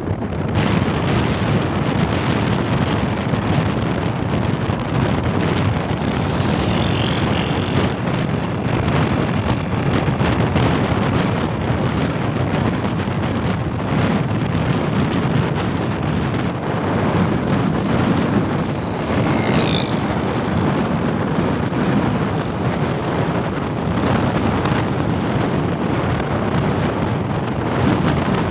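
Steady rush of wind and road noise from a moving vehicle. Two brief high chirps stand out, about a quarter of the way in and again about two-thirds in.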